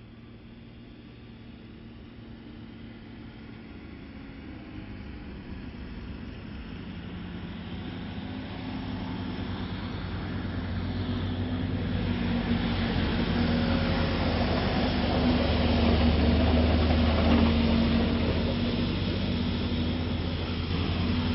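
A large armored truck's engine approaching and passing, a steady low drone with rising road and tyre noise. It grows steadily louder for about fifteen seconds and is loudest a few seconds before the end, then eases slightly.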